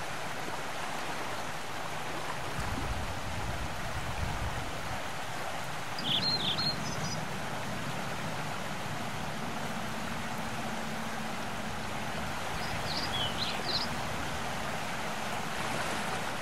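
Steady rushing outdoor ambience with two short high chirps, one about six seconds in and another around thirteen seconds, and a faint low hum that joins about six seconds in.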